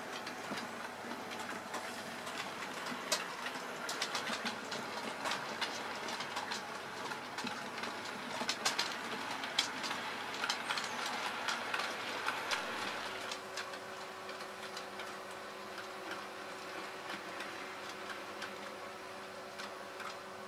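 OO gauge model trains running on a layout: metal wheels clicking over rail joints and pointwork with a rushing rattle. About two-thirds of the way through, the clicking thins out and a steady locomotive motor whine carries on.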